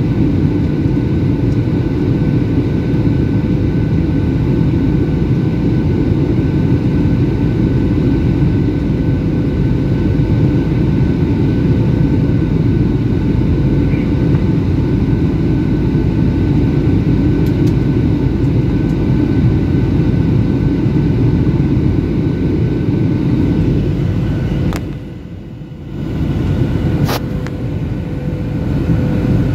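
Steady cabin noise of a Boeing 737 in flight on approach: a low engine and airflow rumble with a few faint steady hums on top. Near the end the sound drops out sharply for about a second, with a couple of clicks around it.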